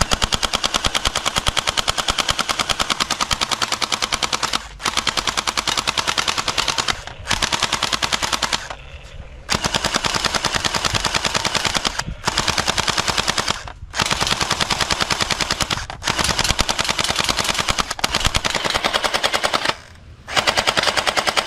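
Toy AK-47 submachine gun firing in long rapid-fire bursts, about nine of them, each one to four seconds long with brief pauses between.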